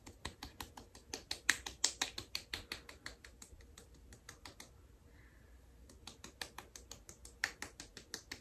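Fingertips patting cream into the skin of the face, a fast run of light slapping taps, about five or six a second, stopping for about a second midway and then starting again.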